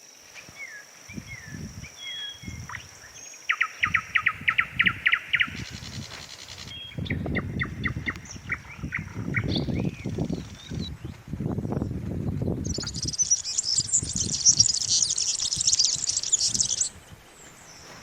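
Birds calling: a rapid trill about four seconds in and another around eight seconds, then a loud, dense burst of high chirping for about four seconds near the end, over a thin, steady high tone. Irregular low thumps sound underneath.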